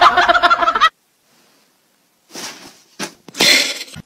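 A loud voice that cuts off abruptly about a second in. Then a dog sneezes three times in quick succession, the last sneeze the longest and loudest.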